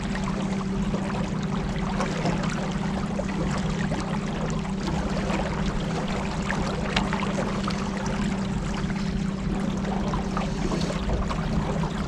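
Motorboat engine running at a steady speed, a constant low hum, over the rush of water along the hull.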